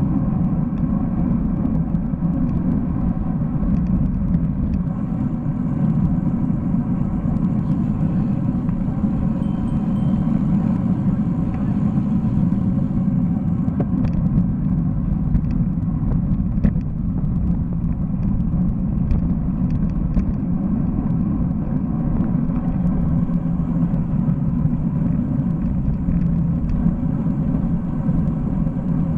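Steady wind buffeting and road rumble on a bike-mounted camera's microphone while riding a road bike, with a few faint ticks.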